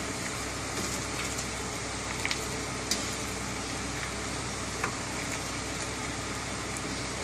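Vegetable soup boiling in a large aluminium pot with a steady hiss, as a spoon stirs it and clinks lightly against the pot a few times.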